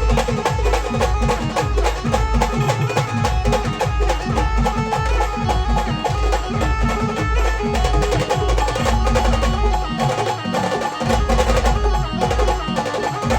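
Instrumental passage of a live Maharashtrian band playing a Kanbai folk song: a heavy, steady drum beat with percussion under a sustained melody line, without singing.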